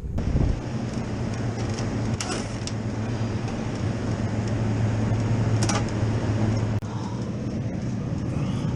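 Steady hum of running machinery with a constant low drone, and a few faint clicks.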